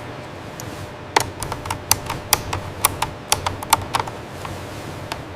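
A run of about a dozen sharp, irregular clicks or taps, roughly three a second, starting about a second in and stopping near the four-second mark, over a steady low hum.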